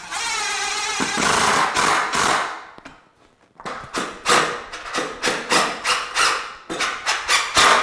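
DeWalt cordless impact driver driving a pocket screw into a trim joint. It starts with a brief motor whine that goes into rapid impacting for about two seconds, then after a short pause runs in short bursts, about three a second, as the trigger is pulsed to seat the screw.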